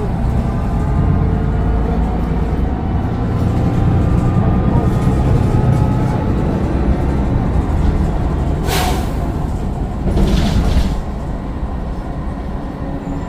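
Mercedes-Benz Citaro bus's Daimler OM906 6.4-litre diesel running under way, heard from inside the bus as a steady rumble with turbocharger whine above it. Two short hisses break in, about nine and ten and a half seconds in.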